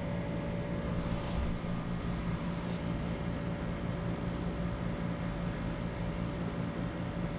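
Steady background hum and hiss: a low drone with a fainter, higher steady tone above it, from some running machine.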